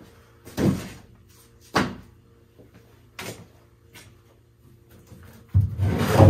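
Split firewood knocking as pieces are handled and stacked: three sharp knocks a second or so apart, then a longer, louder clatter of several pieces near the end.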